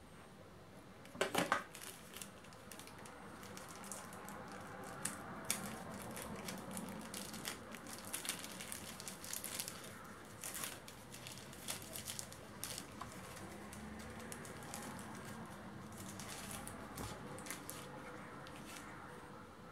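Clear plastic packaging crinkling and rustling in the hands as an earphone box's small parts are unwrapped, in irregular crackles with a louder cluster about a second in.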